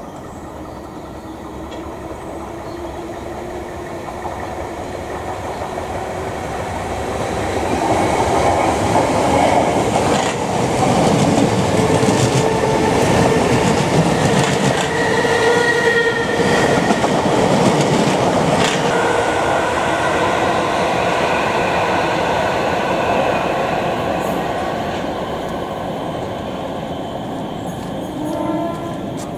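A South Western Railway electric multiple unit passing: the rumble builds over several seconds, stays loud with steady whining tones and a few wheel clicks for about fourteen seconds, then fades away.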